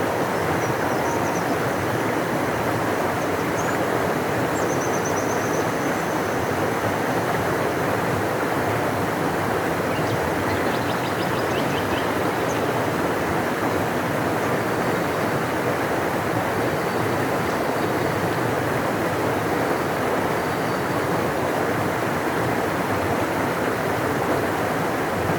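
A large river rushing steadily, a deep, even sound of water.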